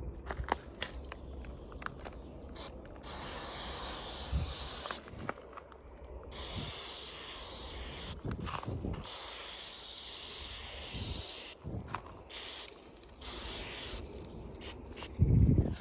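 Aerosol spray paint can spraying in several long hisses lasting a few seconds each, with short gaps of scuffing and small clicks between them; a loud low thump near the end.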